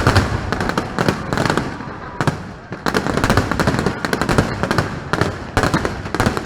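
Aerial fireworks going off in a dense, rapid run of bangs and crackles over a continuous rumble.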